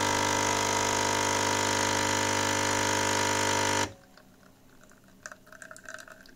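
Nespresso pod coffee machine's pump buzzing steadily as it brews coffee into a glass, then cutting off abruptly about four seconds in, after which only faint small sounds remain.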